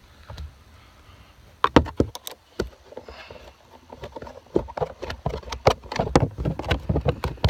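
Handling clicks and knocks of hand tools and plastic steering-column trim during reassembly, a few sharp ones about two seconds in, then coming thick and fast in the second half.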